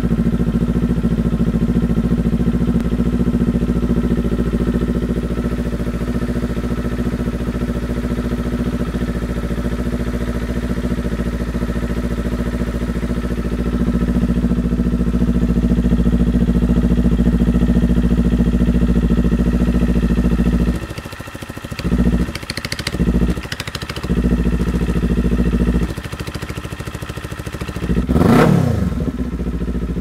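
Kawasaki Z400's parallel-twin engine idling steadily through a Hotbodies MGP slip-on exhaust, heard close to the outlet. The engine is freshly started and not yet warmed up. After about twenty seconds the throttle is blipped a few times, and near the end it is revved up and back down once.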